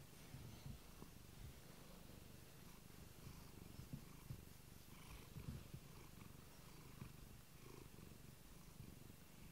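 A tabby cat purring quietly, a low rumble picked up close to the cat.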